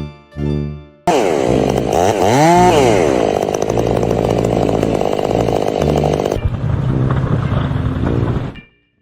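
A few plucked guitar notes, then a small motor cuts in loudly about a second in. It revs up with a rising whine around two seconds in, runs steadily and stops shortly before the end.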